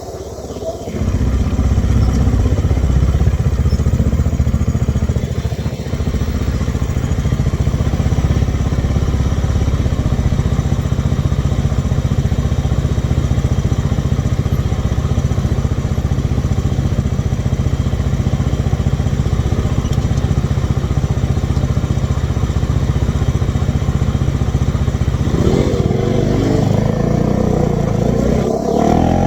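Bajaj Dominar 400's single-cylinder engine running steadily, coming in loud about a second in. Near the end the note changes and turns higher.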